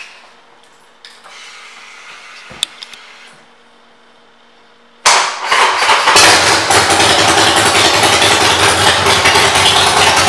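A few faint clicks, then about five seconds in the 2009 Harley-Davidson Sportster 1200 Custom's V-twin engine is started, catches and runs loud and steady through its aftermarket exhaust.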